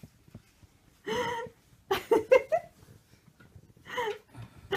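Short, high-pitched vocal sounds: one held about a second in, a quick run of short ones at two seconds, and a brief falling one near the end.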